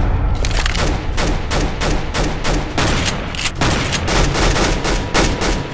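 Rapid blaster fire: a fast run of sharp shots, roughly four a second, over a low rumble.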